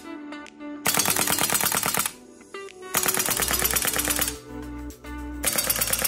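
WE AK74 full-travel gas blowback airsoft rifle firing on full auto in three bursts of about a second each, the bolt carrier cycling with each shot. Its cyclic rate is one the shooter finds sluggish and dragging. Background music plays between the bursts.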